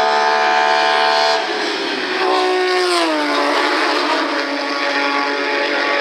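Race car engine running at high, steady revs. About a second and a half in the sound changes abruptly, then the engine note falls over about a second as the car slows, and settles at a lower steady pitch.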